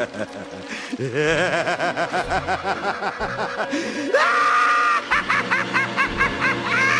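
A man's maniacal cackling laugh in rapid pulses, about four a second, rising about four seconds in into a long, high held shriek, then breaking back into cackling.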